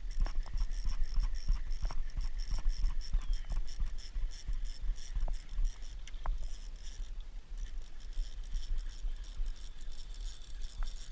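Wind buffeting the microphone in a low, fluttering rumble, with a few small clicks and knocks from the kayak and tackle.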